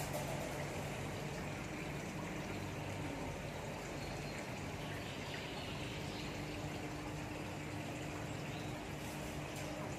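Steady background noise of a large shop hall: a constant wash of noise over a low hum, with a faint steady tone coming in a little past halfway.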